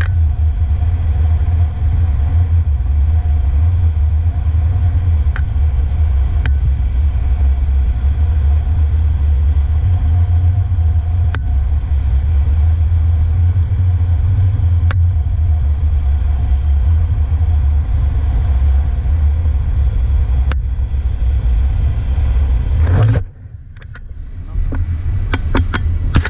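Motor scooter being ridden: a loud, steady low rumble of wind and road noise on the microphone with the engine running underneath. About 23 s in the rumble drops suddenly, followed by clicks and rubbing as the camera is handled against the rider's jacket.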